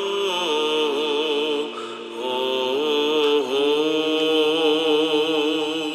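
Byzantine-style chant: a voice sings a slow, wavering melody over a steady held drone note, and begins to fade out near the end.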